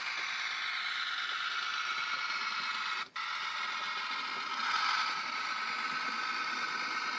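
Model DB Class V 90 diesel locomotive running along the track: a steady mechanical running sound with a few high steady tones. It cuts out for an instant about three seconds in and swells slightly a couple of seconds later.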